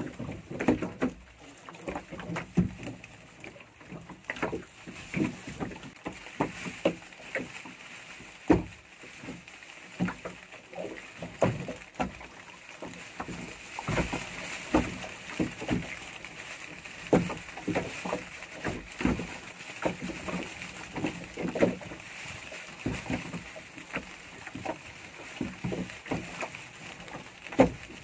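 Waves slapping against the hull of a small open fishing boat at sea: irregular knocks, about one or two a second, over a steady hiss.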